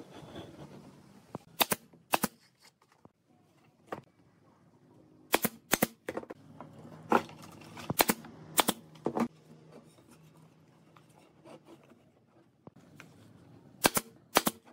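Brad nailer firing brads into the mitred corners of a pine frame: about ten sharp shots, several in quick pairs, in three bursts with quiet gaps between.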